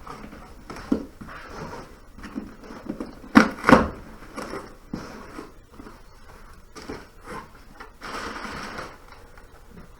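A stapled and taped cardboard parts box being pried and torn open by hand: irregular scraping, rustling and crackling of cardboard, with two sharp knocks about three and a half seconds in and a longer rasping tear near the end.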